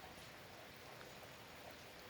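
Soft, steady rain, with faint scattered drop ticks.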